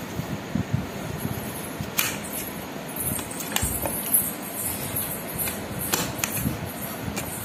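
Knife cutting apple pieces on a plate, with scattered sharp clicks and taps of the blade on the plate over a steady background hiss.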